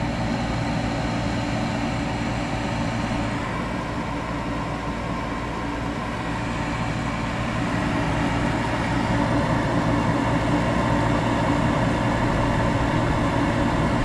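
Gas heating section of a Carrier 48GS packaged unit running just after ignition: the draft inducer motor runs steadily with the gas burners lit, the pressure switch jumpered out. The sound grows slightly louder about halfway through.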